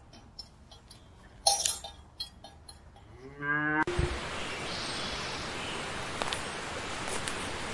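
Cows chewing and tearing at leafy branches with soft crunching clicks, a short burst of noise about a second and a half in, then a cow lowing, rising in pitch and then held, a little past the middle. The sound cuts off abruptly to a steady hiss of outdoor ambience with a single thump at the cut.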